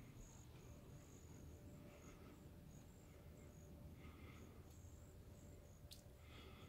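Faint outdoor insect chirping, crickets, in short broken high pulses, with a softer chirp repeating about every two seconds.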